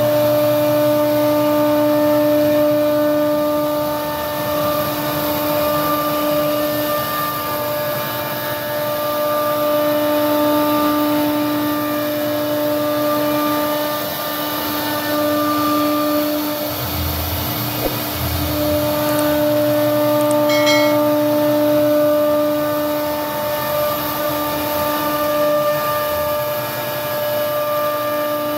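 CNC router spindle running at a steady whine while its bit cuts grooves into a wooden door panel.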